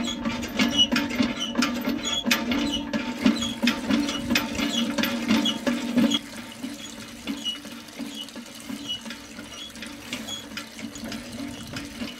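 Miniature DIY hand pump being worked, its small metal handle clicking and squeaking, with water splashing from its plastic tube into a little clay channel. The clicking is louder for about the first six seconds and then drops off.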